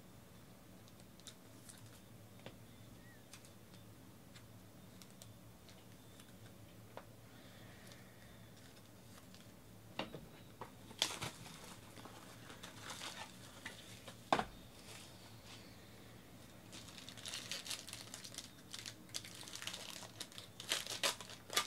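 Silver foil wrapper of a trading card pack crinkling and tearing as it is pulled open by hand. The crinkling starts about halfway through, with a few sharp clicks, and is busiest near the end.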